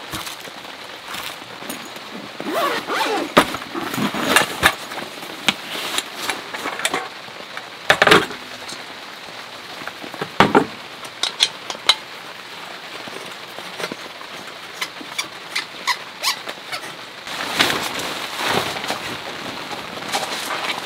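Steady rain falling, with many sharp clicks and knocks scattered through it, louder in clusters a few seconds in, about midway and near the end.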